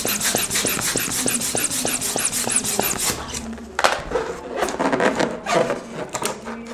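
Yellow plastic hand balloon pump worked rapidly, about four short hissing strokes a second, filling a black latex balloon, stopping about three seconds in. Then the inflated latex balloon is handled and knotted, with rubbing noises.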